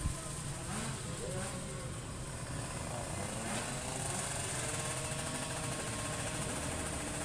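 Two-stroke drag-bike engine running steadily at low revs.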